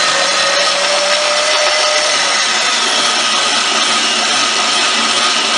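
Grain mill running steadily, grinding toasted, dried wheat berries into cracked wheat.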